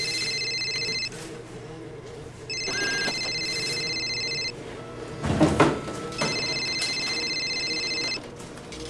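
Telephone ringing with an electronic ring tone: three rings of about two seconds each, with pauses between. Between the second and third rings, a few loud knocks are heard about five and a half seconds in.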